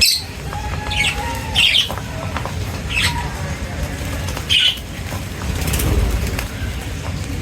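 Birds feeding, giving a handful of short high chirps and squawks spaced a second or more apart, over a steady low background rumble.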